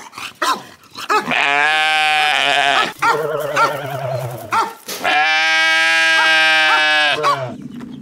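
Sheep bleating: two long, wavering bleats, about a second and a half and two seconds long, with short higher calls in between.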